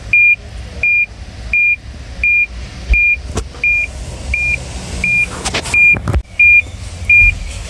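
Toyota Land Cruiser's parking-sensor warning buzzer beeping steadily, a short high beep about every 0.7 seconds. This signals that the center parking sensors are detecting an object, which shows the sensors are working.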